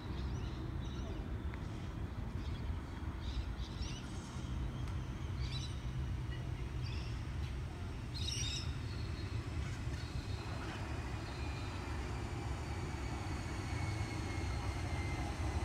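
A V set double-deck electric train approaching the platform: a steady low rumble, with a faint whine falling slowly in pitch in the second half as it slows. Small birds chirp briefly several times in the first half.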